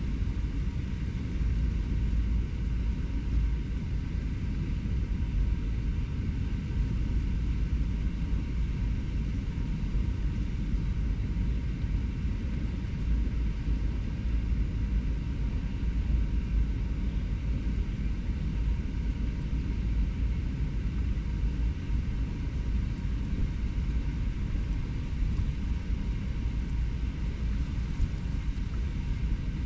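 Steady low rumble of urban background noise, strongest in the deep bass and unchanging throughout, with no distinct events standing out.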